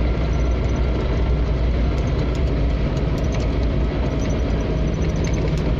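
Four-wheel-drive vehicle running steadily off-road, heard from inside the cabin: a steady low engine and drivetrain drone with road noise and a few light knocks and rattles.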